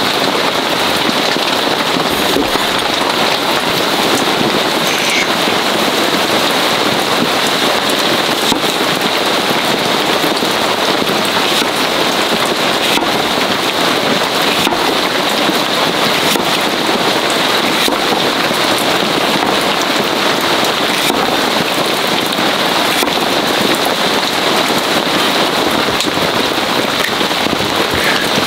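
Heavy rain falling steadily on a tarp: a dense, even hiss with scattered faint ticks.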